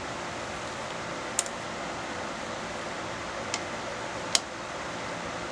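Three short sharp metal clicks, the loudest about four seconds in, as a T-handle chuck key works the jaws of a wood lathe's scroll chuck to release the workpiece. A steady hiss underneath.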